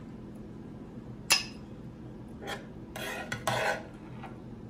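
A spoon clinking and scraping in a Copper Chef pan while shrimp is served out: one sharp ringing clink about a second in, then a few short scrapes in the second half.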